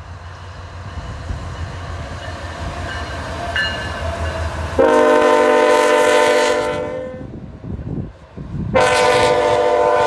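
Diesel locomotive running light: its engine rumble grows as it approaches, then its air horn sounds two long blasts, the first about five seconds in and the second near the end.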